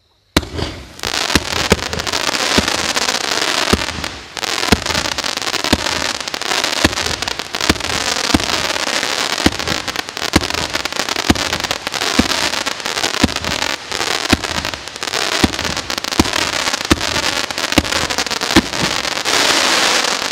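A 25-shot, 30 mm firework cake (Evolution Fireworks Sunbeam 3) firing its shots one after another: a steady run of sharp launch thumps over a continuous hiss of the burning effects. There is a brief lull about four seconds in.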